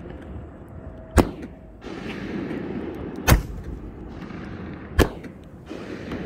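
Consumer fireworks going off: three loud, sharp bangs about two seconds apart, with a steady hiss and crackle in between.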